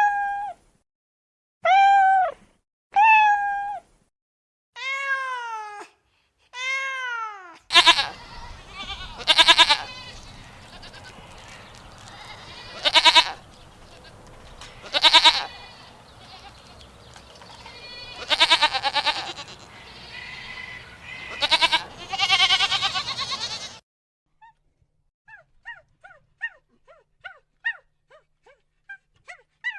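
Goats bleating repeatedly with a quavering call over a steady low background. Before them comes a run of separate rising-and-falling calls like a cat's meows, and after them a string of short, faint, high squeaks.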